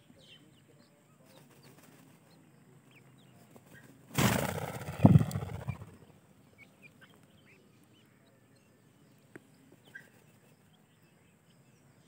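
Faint, scattered peeping chirps of grey francolin chicks. About four seconds in, a loud burst of noise lasting under two seconds.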